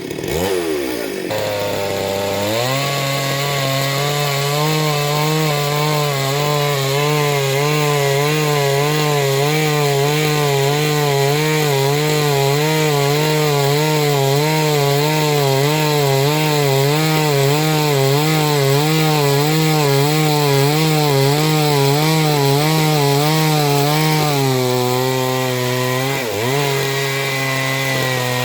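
Chainsaw cutting into a gamhar tree. The engine climbs to high revs a couple of seconds in and holds there under load with a steady, regular waver in pitch. Near the end it drops back to lower revs, with one brief dip.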